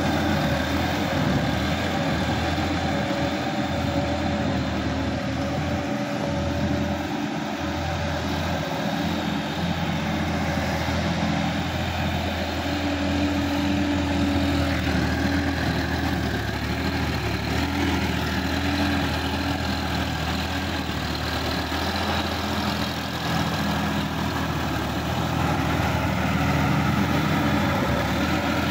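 Sonalika DI-50 RX Supreme tractor's diesel engine running steadily under load while it pulls a rotary tiller through wet paddy mud. It grows slightly louder near the end as the tractor comes back close.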